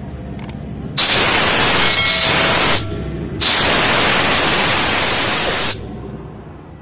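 Compressed air and water blasting out of an air compressor tank's drain ball valve in two loud hissing spurts of about two seconds each, starting and cutting off sharply as the valve is opened and shut. The tank is being drained of condensed water while it is still under air pressure.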